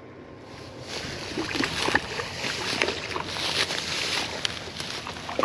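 Rustling and crackling of dry grass with hand-handling noise, as a freshly landed brown trout is taken in hand on the bank.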